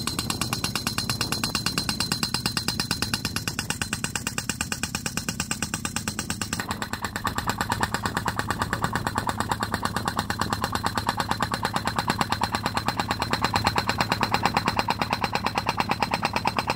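Pneumatic soil-piercing tool (grondraket) hammering underground with a rapid, even stroke, driving a bore under the paving for the conduit, over a steady low hum. The hammering grows brighter and a little louder about two-thirds of the way through.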